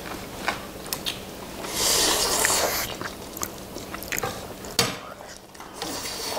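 Close-up eating of Chapagetti black-bean instant noodles: wet chewing and a loud noodle slurp lasting about a second around two seconds in, among scattered clicks of metal tongs and chopsticks against the dishes, with one sharp click near the end.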